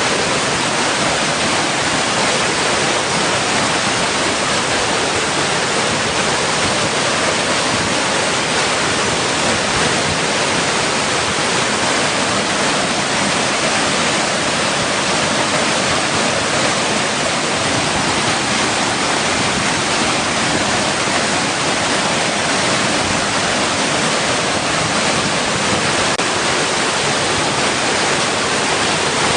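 Water rushing steadily against rocks, an even, unbroken rush with no separate splashes or wave surges.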